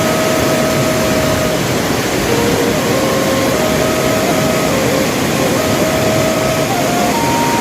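A slow flute melody of long held notes stepping up and down, over a steady, loud rushing noise.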